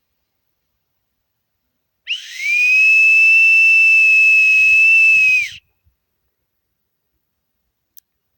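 A whistle blown in one long, steady, high note of about three and a half seconds, with a breathy hiss. The note slides up into pitch at the start and drops away at the end.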